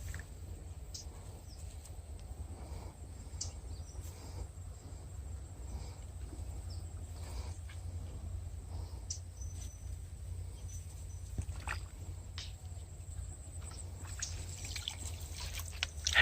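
Faint outdoor ambience: a steady low rumble with scattered small clicks and ticks, growing busier near the end.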